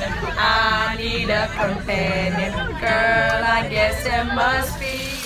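Music with voices singing held notes.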